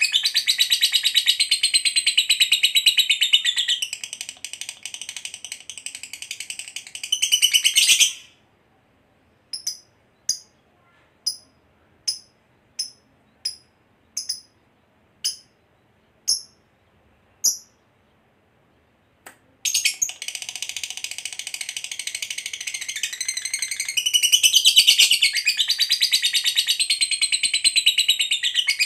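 A lovebird's long, fast, high-pitched chattering song ('ngekek panjang') runs for about eight seconds, then stops. About ten short single chirps follow, spaced under a second apart, and then the chattering starts again and runs on, louder near the end.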